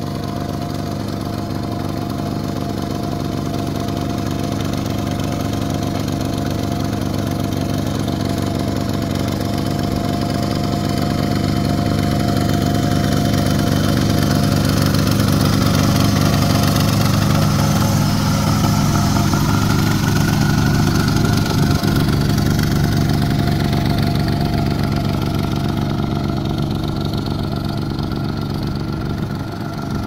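Two-wheel walking tractor's single-cylinder engine running steadily as its cage wheels pull through a flooded rice paddy. It grows louder until about halfway through, then fades as the machine moves away.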